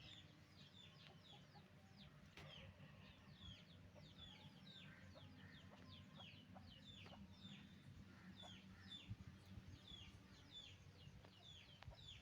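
Chickens peeping faintly: short, high, falling notes repeated about two or three times a second, with a few soft clicks among them.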